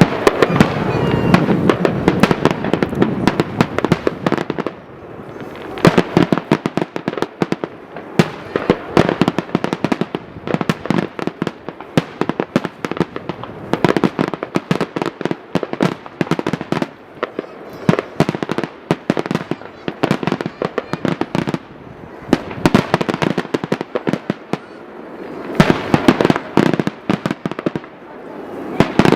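Fireworks display: rapid volleys of sharp bangs and crackling reports, coming in dense waves that build and thin out every few seconds.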